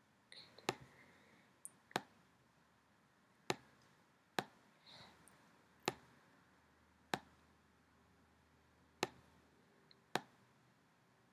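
Computer mouse clicks: about eight short, sharp single clicks, irregularly spaced a second or so apart.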